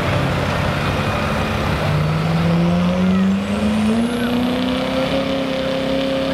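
Diesel GMC pickup's Duramax V8 running at full throttle under heavy load while pulling a sled; its pitch climbs steadily over a couple of seconds around the middle, then holds high.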